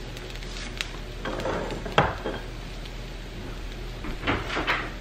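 Kitchen clatter of metal cookware and utensils: scattered knocks and clinks from about a second in, the sharpest clank at about two seconds and a few more near the end, over faint sizzling from potatoes and onions frying in a skillet.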